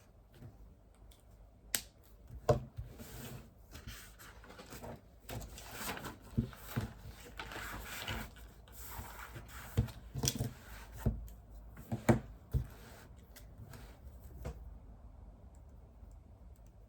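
Paper rustling and desk items being handled, with a string of sharp taps and clicks, busiest from about two seconds in and easing off a couple of seconds before the end.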